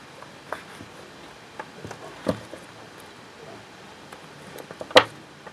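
Small scissors snipping the yarn end off a crocheted doll, a sharp click near the end, after a few lighter clicks and rustles from handling the doll and tools.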